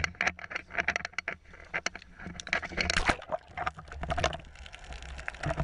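Sea water splashing and sloshing against a small boat, with many short irregular knocks and rustles over a steady low rumble.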